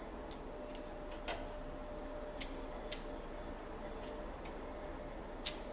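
A handful of sharp, irregularly spaced clicks: metal test-probe tips tapping against breaker terminals and wires during a continuity check for a short circuit.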